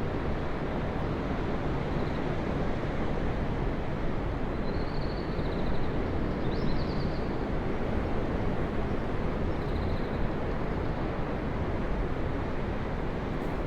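Ocean surf washing steadily onto the shore, a constant rushing roar of breaking waves. A few faint high chirps sound over it about two seconds in, around the middle, and again near ten seconds.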